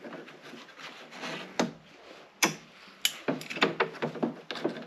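Jumper-cable clamp being handled and clamped on by gloved hands: rustling, then single knocks about a second and a half in and twice more, then a quick run of clicks and knocks near the end.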